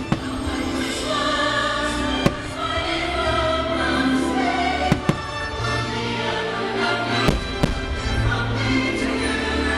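Choral Christmas music playing steadily, with about six sharp firework bangs over it, the later ones coming in close pairs.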